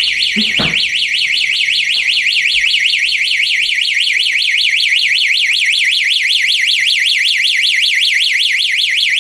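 Skylink HA-300 wireless household alert receiver sounding its loud electronic siren, a high-pitched tone warbling rapidly up and down, set off by its motion sensor detecting someone passing.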